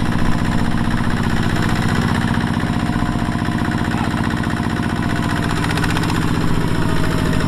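Kubota ZT155 single-cylinder diesel engine on a two-wheel walking tractor, running steadily under load as it pulls a loaded rice trailer through mud.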